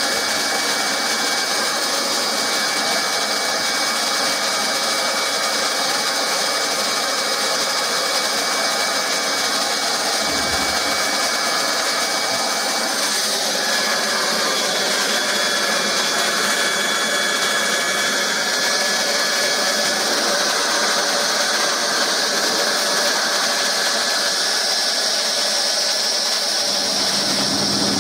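Hot-air plastic welding gun blowing steadily, a continuous hiss with a thin high whine from its fan. About a second before the end, a lower steady hum comes in.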